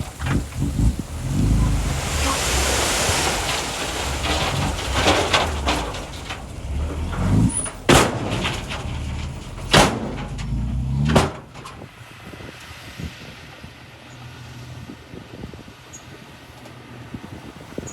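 Diesel engine of a small crawler bulldozer working under load, rising in pitch twice as it revs, with three sharp knocks near the middle. It then drops to a quieter steady running for the rest.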